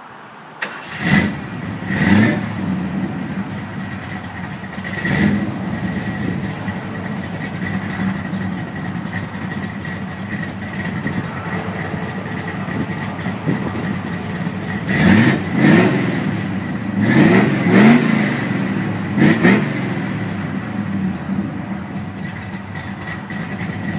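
Classic car's engine idling through its exhaust, with the throttle blipped up and back down about eight times: twice near the start, once about five seconds in, and in a cluster between about fifteen and twenty seconds in.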